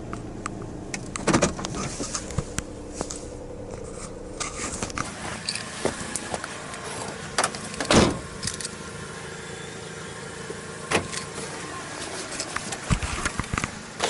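A car's engine idling for the first few seconds, with knocks and clicks as someone gets out. A car door shuts with a heavy thud about eight seconds in, followed by a few more clicks and keys jingling.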